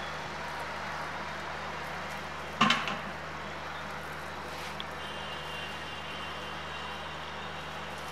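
Steady background hum, with one sharp clack about two and a half seconds in and a faint click a couple of seconds later.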